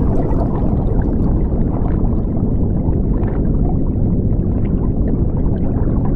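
Muffled underwater water noise: a steady low rumble with faint scattered crackles.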